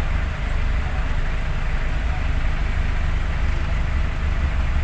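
Vehicle engines idling in stopped traffic: a steady low rumble with no distinct events.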